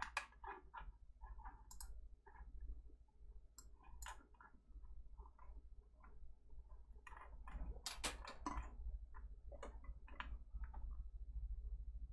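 Faint scattered clicks and small handling noises, a denser run of them about two thirds of the way in, over a steady low hum.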